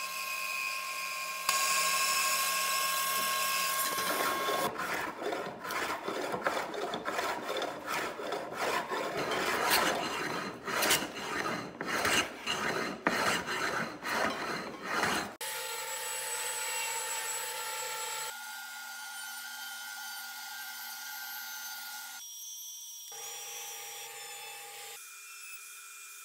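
Hand plane shaving a wooden table leg: a run of quick rasping strokes, about two a second, lasting roughly ten seconds. Before and after the strokes there is a steadier sound with held tones.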